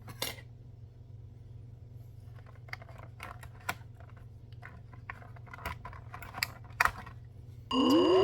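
Scattered small clicks and snaps of hands working on a plastic action figure, removing the rubber bands that hold it in its packaging. Near the end a much louder pitched sound starts and rises in pitch.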